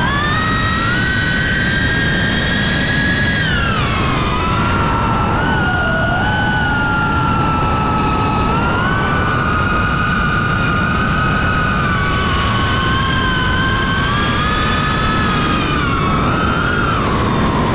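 Model jet's engine heard from on board in flight: a high whine with several overtones that climbs at the start, sags around four seconds in, then holds fairly steady before dropping near the end, over a constant rush of air.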